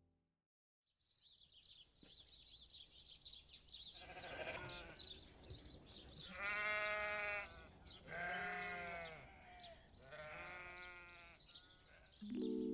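Sheep bleating four times, long wavering calls about a second each, over a faint high chirping in the background. Just before the end a steady held musical chord comes in.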